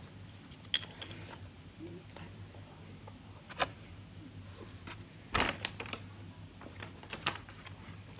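Scattered crinkles and clicks of paper being handled, a napkin and a paper takeout bag, with the loudest crinkle about five seconds in, over a low steady hum.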